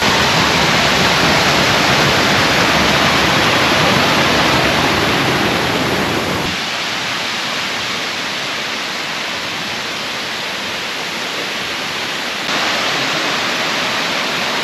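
Erawan waterfall cascade rushing steadily. The sound is heavier, with more low rumble, for the first six seconds, then lighter, and steps up slightly near the end.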